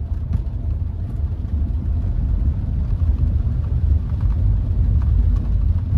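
Low, steady rumble of the Hyundai HB20's 1.6 engine and its tyres on a wet road, heard from inside the cabin as the car pulls away, growing a little louder over the first two seconds.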